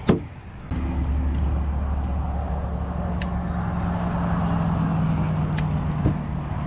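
A single sharp thump, then an engine starts up less than a second later and runs on steadily with a low, even hum.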